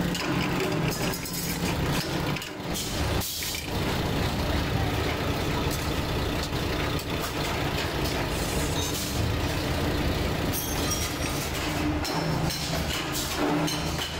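Steady metalworking workshop noise: machinery running with a low hum under a constant clatter.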